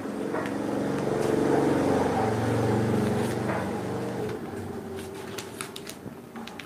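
A motor vehicle's engine passing by, its hum swelling over the first few seconds and then fading away, with a few sharp clicks near the end.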